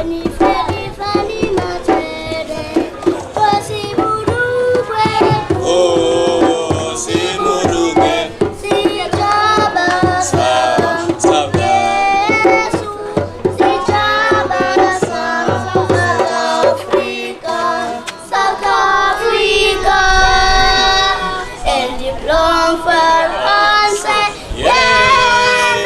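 Singing voices over hand-drum percussion: a song with a steady beat.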